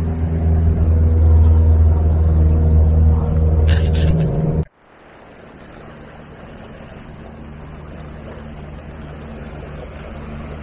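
MacGregor 26X sailboat's outboard motor running steadily under way, a loud low hum with a brief clatter near the end. About four and a half seconds in the sound drops sharply, and a much quieter steady engine hum with water and wind noise continues.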